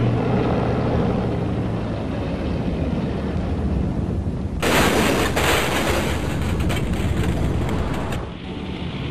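Aircraft piston engine noise, a steady rumble, with a loud rushing hiss from about four and a half to about eight seconds in.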